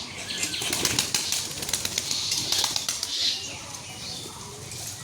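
Pet pigeons flapping their wings: a quick flurry of wing claps that settles down after about three seconds.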